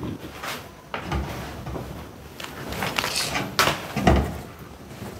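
Irregular knocks and thumps with some rustling, as household things are handled and moved about; the loudest knocks come a little past the middle.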